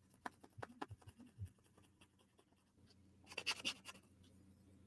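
Faint clicks and scratchy taps of small wooden puzzle-box parts being handled and fitted together: a run of small clicks in the first second and a half, then a short scratchy cluster about three and a half seconds in.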